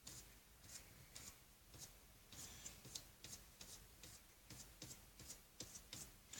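Paintbrush dabbing and scrubbing acrylic paint onto paper: faint, short scratchy strokes, two or three a second, unevenly spaced.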